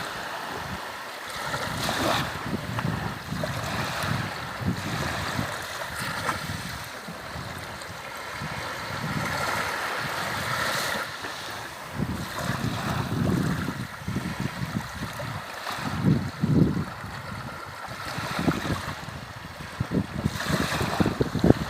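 Sea waves washing in and out on the shore, a steady rush that swells and eases, with wind buffeting the microphone in gusts.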